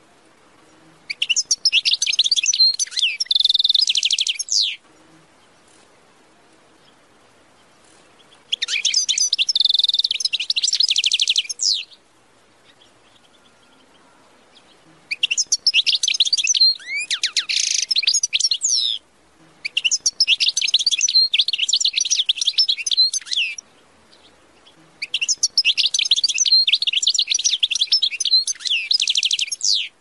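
A finch singing five phrases of rapid high trills and twitters, each lasting about three to five seconds, with short pauses between them.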